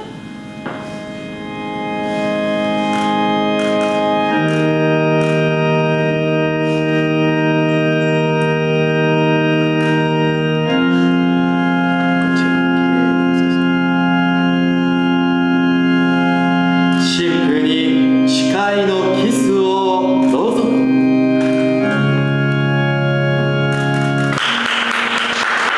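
Organ playing slow, sustained chords that change every few seconds. Applause breaks out near the end.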